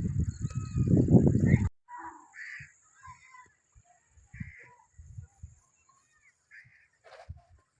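A loud rumble of wind or handling on the microphone for the first second and a half, then scattered short, caw-like bird calls with soft low thuds in between.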